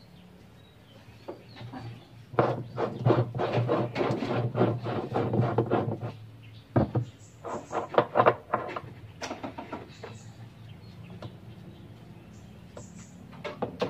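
Clattering and scraping of hands and tools at the pulsator hub of a top-loading washing machine as its fixing nut is worked loose. A quick run of scraping strokes comes a few seconds in, then a few sharp clicks about halfway, over a low steady hum.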